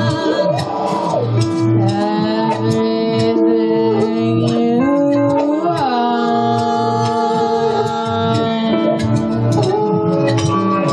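Live band music: electric guitar over a steady low beat, with long held notes that shift in pitch every few seconds.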